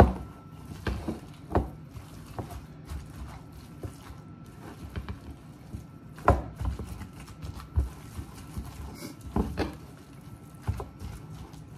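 Spatula stirring a thick, chunky salad in a plastic mixing bowl: soft scraping with irregular knocks of the spatula against the bowl, the loudest about six seconds in.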